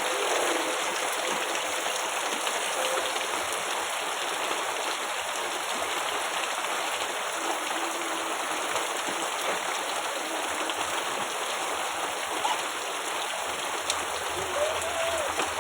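Heavy rain pouring down steadily, a dense even hiss of falling and running water.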